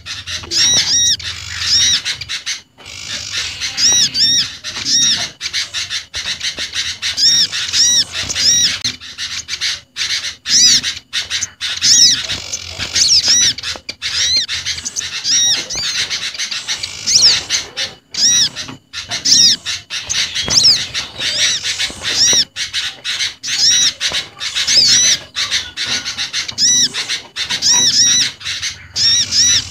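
Mixed recording of small songbirds calling, made as a lure for garden birds: dense phrases of quick, high, arched chirps repeating over and over.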